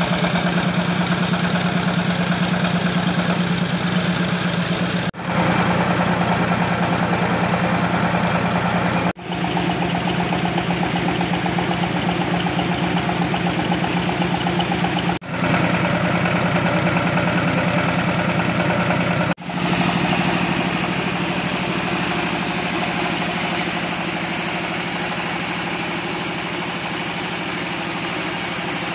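Coffee huller machine running: a steady mechanical drone with a fast, even pulse and a strong low hum. It is broken by four sudden brief dropouts, and after the last one a brighter hiss sits on top of the drone.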